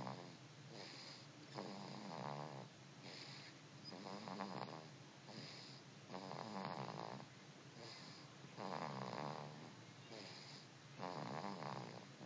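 Steady rhythmic snoring: a rattling snore roughly every two and a half seconds, with a fainter hissing breath between snores.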